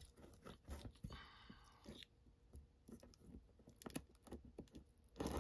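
Faint scraping and small clicks of a blade being drawn through packing tape on a cardboard box, with a brief squeaky scrape about a second in and a louder rustle of cardboard near the end.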